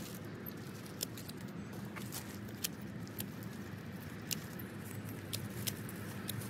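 Scattered sharp clicks and light knocks at irregular intervals, over a steady low hum.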